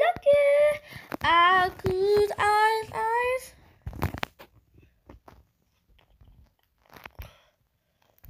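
A high-pitched voice singing a wordless, gliding tune for about three and a half seconds, followed by scattered crunching and clicking noises, the loudest about four seconds in.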